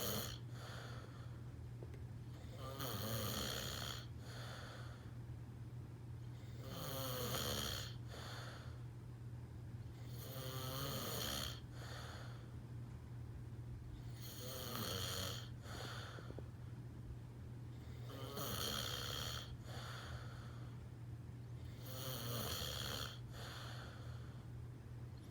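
A man snoring in slow, regular breaths, a loud rasping snore about every four seconds, six in all, each followed by a softer short breath.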